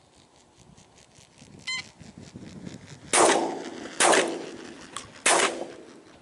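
Three shotgun shots in quick succession, the first about three seconds in, each followed by a short ringing echo. Geese honk faintly before the shots.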